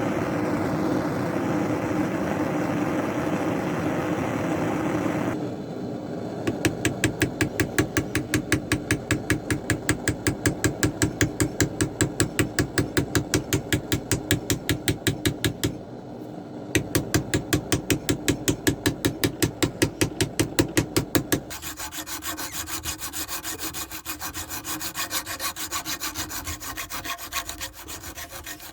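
Wood being worked by hand with rapid back-and-forth strokes, about four a second, in several stretches with short breaks, after a few seconds of steady rushing noise.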